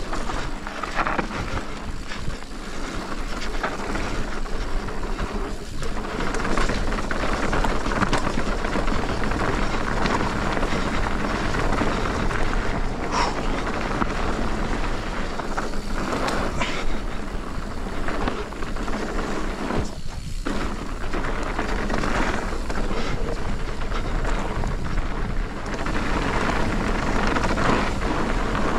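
Continuous rush of a Commencal Meta TR mountain bike's tyres on a dirt bike-park trail during a fast descent, mixed with wind on the action camera's microphone. There are occasional knocks from the bike over bumps, and the rush dips briefly twice.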